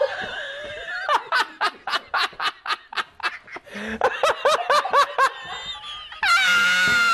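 Hearty human laughter in rapid rhythmic bursts, mixed with a smartphone talking-cat app playing back what it hears in a sped-up, high-pitched voice. A long, steady, very high-pitched squeal comes in about six seconds in.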